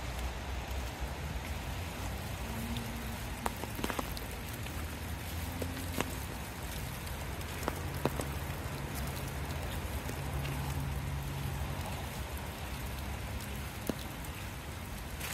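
Steady rain falling on trees and a leaf-covered path, with scattered sharp raindrop ticks and a low steady rumble underneath.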